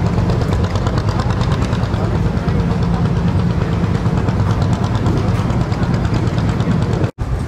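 Vintage tractor engine idling with a steady, even beat. The sound drops out abruptly for a moment near the end.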